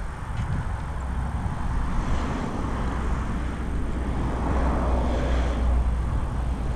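Wind buffeting a handheld action camera's microphone: a steady, fluctuating low rumble with gusts swelling about two seconds in and again near five seconds.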